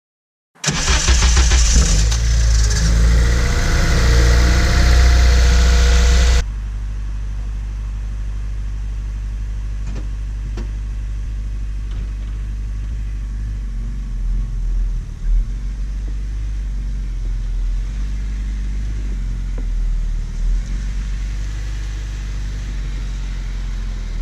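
Honda Civic Si's K20Z3 four-cylinder engine starting, with a loud rattly start-up for about six seconds before dropping abruptly to a steady idle. The owner suspects a timing chain tensioner or VTC gear problem, which he says is common on these engines.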